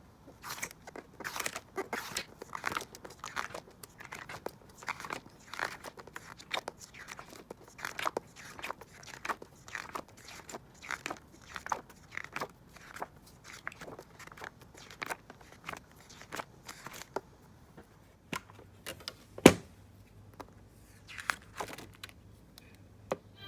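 Rapid crinkling, crunching clicks of something being handled, dense for most of the stretch and then sparser, with one sharp louder knock near the end.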